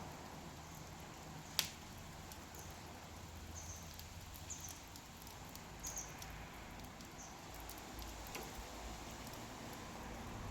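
Wood fire burning with a low, steady crackle, one sharp pop about one and a half seconds in and a few lighter snaps, plus a handful of brief high-pitched squeaks of steam escaping from the burning wood.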